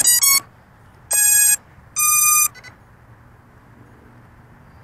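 Brushless motors of a QAV210 FPV quadcopter sounding the ESCs' start-up tones: a quick run of short beeps, then two longer beeps about a second apart, the second higher. The tones mark the speed controllers powering up and detecting the throttle signal, ready to arm.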